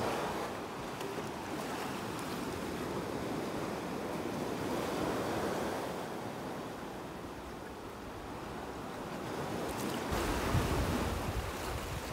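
Small sea waves washing over a shallow rocky shore, a steady rush that swells and eases every few seconds. Near the end wind buffets the microphone with a low rumble.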